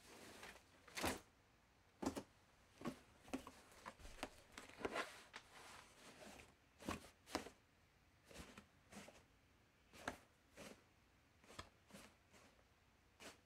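Laundry basket being handled: an irregular series of knocks, clicks and rustles, roughly one or two a second, some short and sharp, a few drawn out into brief scraping rustles.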